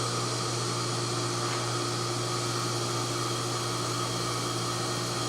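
Steady hum and fan-like noise of a 10 kW induction heating system running at about 70% power while heating a soldered joint, level and unchanging throughout.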